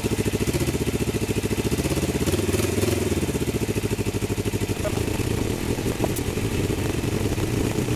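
1981 Suzuki GS450L's air-cooled parallel-twin engine running on its first start after about ten years unused, with a steady, rapid beat. About two to three seconds in the pitch rises and falls briefly, and from about five seconds on the beat turns rougher and less even.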